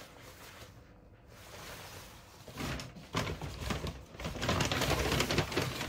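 Clothing being handled: rustling fabric and light scrapes and knocks, starting about two and a half seconds in after a quiet stretch and going on to the end.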